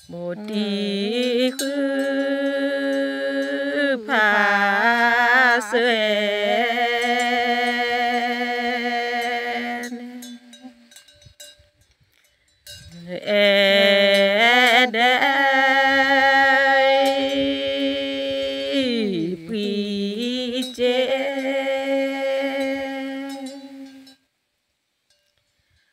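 A single voice chanting a Karen tha, a traditional sung poem, unaccompanied, in two long phrases of held, wavering notes with a pause of about two seconds between them.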